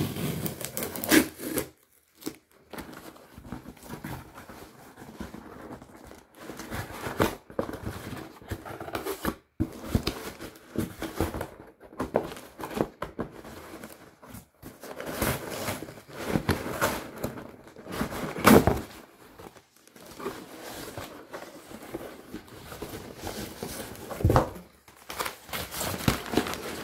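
Cardboard shipping box being torn open by hand, with irregular bursts of ripping, crinkling of packing material and handling of the carton, and a few sharper rips.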